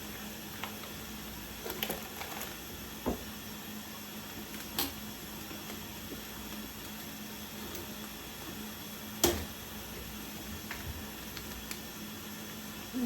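Scattered knocks, clicks and light clatters of food containers being handled while a refrigerator is cleaned out, the sharpest knock about nine seconds in, over a steady faint hum.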